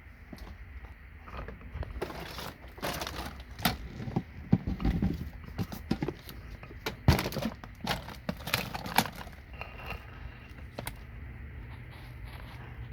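Handling noise as the camera is moved up to the acid container: irregular clicks, knocks and rustling, thickest in the middle. A steady low hum comes in near the end.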